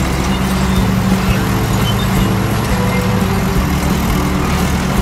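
Engine and track sound effect of a mini excavator driving down a loading ramp: a steady, loud, low mechanical rumble.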